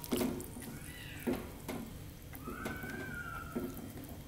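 A spatula stirring fish soup in a non-stick wok, with soft scrapes and knocks against the pan. Two high tones rise and fall over it, the second lasting about a second.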